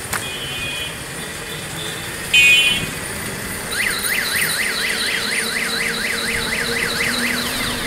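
Busy street traffic with two short, high-pitched horn tones, the second one loud. From about four seconds in, a warbling electronic alarm sweeps up and down about three times a second.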